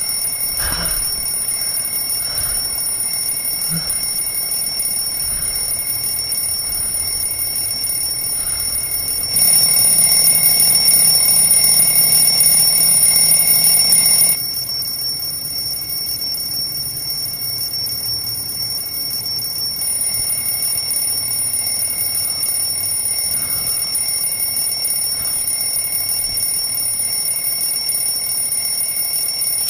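An alarm clock ringing on and on, a steady high-pitched ring that grows louder and fuller for about five seconds, from about nine seconds in.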